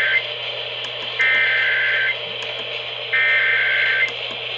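Electronic alert tone beeping in pulses just under a second long, about every two seconds, over steady radio hiss and a low hum.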